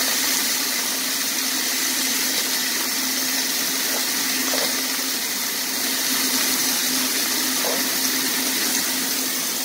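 Sirloin steak, potato and carrot pieces sizzling steadily in hot oil in a frying pan, with a steady low hum beneath.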